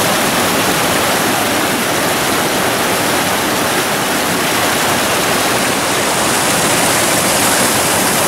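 Fast mountain river rushing over rocks and pouring over a low log weir: loud, steady rushing water.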